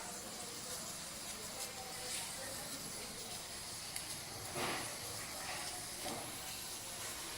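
Steam hissing softly and steadily from a Prestige pressure cooker as pressure builds, with a brief louder burst about four and a half seconds in.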